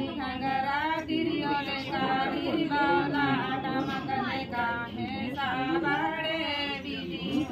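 Women's voices singing unaccompanied, with long held, wavering notes.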